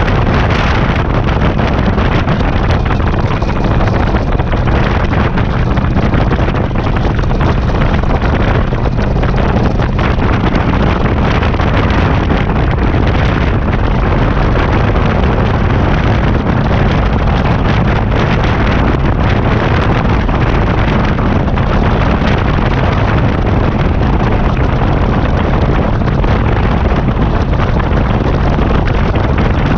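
Touring motorcycle cruising at highway speed: the engine's steady low drone under loud, constant wind rushing over the microphone.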